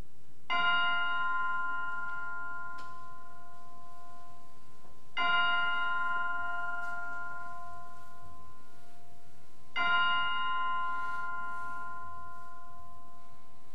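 Chimes struck three times, about four and a half seconds apart, each strike ringing out and slowly fading. These are the chimes that open the worship service.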